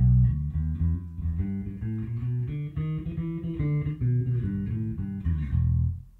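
Sadowsky electric bass played through a Little Walter PB60 60-watt tube head into a JR115 single-15-inch ported cabinet: a run of plucked bass notes that stops about six seconds in.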